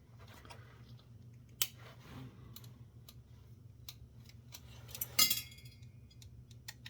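Scattered small clicks and taps of metal parts of a disassembled car radio being handled, with a sharper metallic clink about five seconds in that rings briefly.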